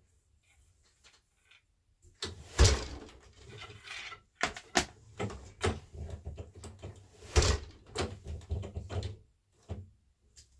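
Wooden 8-shaft loom being worked: the beater thumps twice against the cloth, about five seconds apart, with many lighter wooden knocks and clatters between and after.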